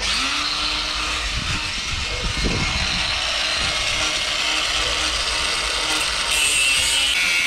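Cordless angle grinder cutting through a rusted, riveted steel bracket on a truck's rear frame, with a steady grinding noise that grows louder and sharper about six seconds in.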